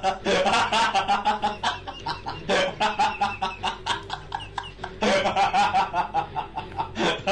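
Laughing sound effect: a rapid run of short, high laughs that starts over about every two and a half seconds, like a looped clip.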